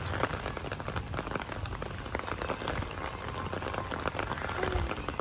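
Rain falling steadily on a wet, puddled flat rooftop: a dense, even spray of small drop impacts.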